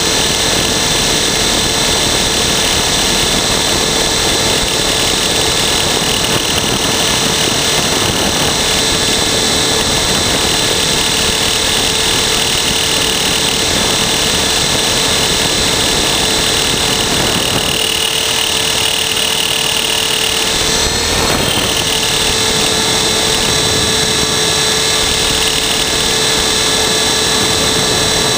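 Trex 450-clone RC helicopter's electric motor and rotor heard from a camera mounted on the helicopter: a steady high whine over rotor and wind noise, with a brief wobble in pitch about three-quarters of the way through.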